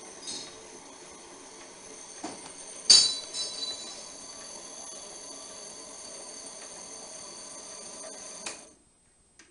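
Cutex TC-38A knit tape cutter running steadily with a high whine as its rotary knife slits tubular knit fabric into tape and winds it onto the roller. A sharp metallic clank comes about three seconds in, with a few lighter clinks after it, and the sound cuts off suddenly near the end.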